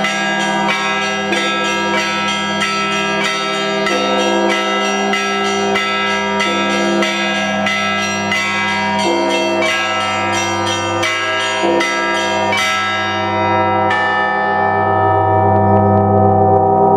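Orthodox church bell ringing: small bells struck in quick, irregular runs over a steady ringing bell tone. The quick strikes stop about three-quarters of the way through, and near the end a bell is struck once and rings on, with a deeper hum swelling.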